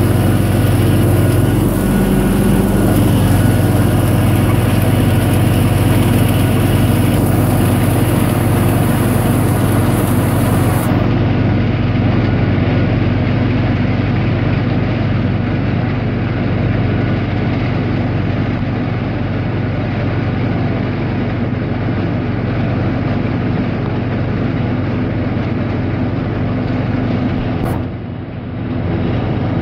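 Gehl 400 forage harvester chopping standing corn, its cutterhead and feed running steadily together with the tractor engine pulling it under load. The level dips briefly near the end.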